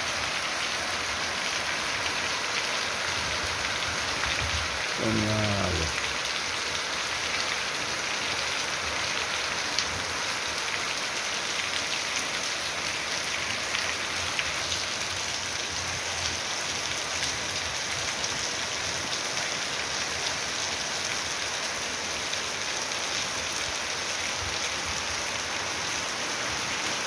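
Heavy rain falling steadily, a dense, even hiss of drops on the ground and on leaves.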